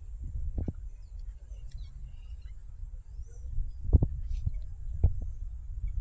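Steady low rumble with dull low thumps, a few about half a second apart in the second half: walking and handling noise on a handheld phone microphone.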